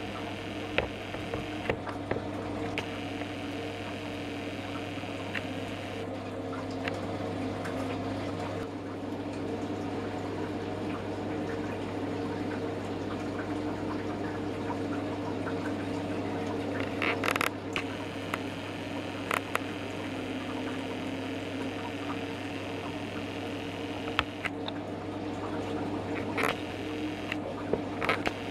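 Apple brandy distillate from a copper pot still trickling through a funnel into a glass jug, over a steady low hum. Occasional small sharp clicks throughout.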